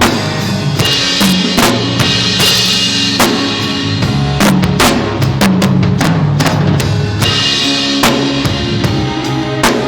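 Live band playing during a sound check: a drum kit with kick, snare and cymbals over a held bass line and sustained chords.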